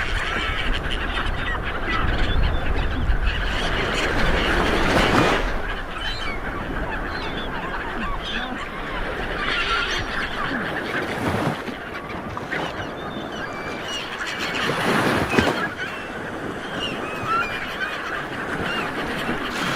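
Sea water washing, with louder surges every few seconds, and many short calls from a flock of birds scattered throughout.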